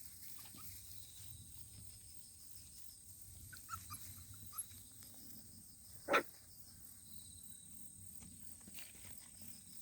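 Puppy making a few faint, short, high cries, then one short, loud bark about six seconds in.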